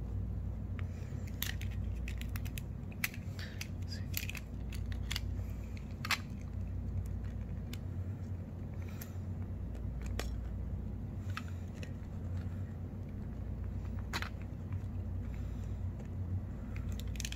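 Sharp plastic clicks and snaps as a Samsung smart TV remote's plastic casing is pried apart by hand, its locking clips releasing. The clicks come thick for the first few seconds, then sparser, over a steady low hum.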